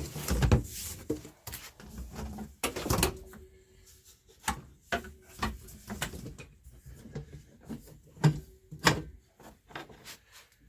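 Irregular knocks, clunks and rattles of workshop items being handled and set down as hoses are cleared out of the way, loudest near the start and again about eight seconds in.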